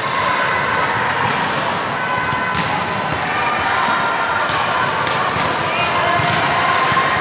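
Volleyball rally in an indoor gym: several sharp smacks and thuds of hands and forearms striking the ball, over players calling out and general hall chatter.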